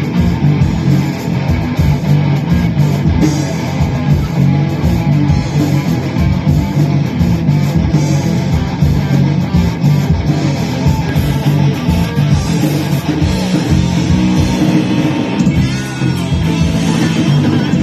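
Rock band playing live, with electric guitar to the fore over bass and a steady beat.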